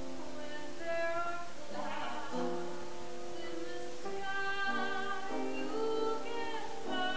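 Background music: a slow melody of long held notes that step from one pitch to the next.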